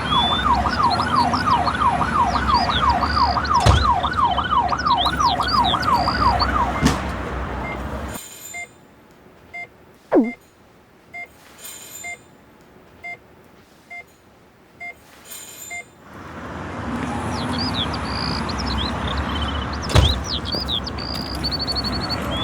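Police siren yelping, rising and falling about three times a second over street noise and chirping birds; it stops about seven seconds in. A quieter stretch follows with soft regular beeps and one quick falling whistle, then the street noise and bird chirps return.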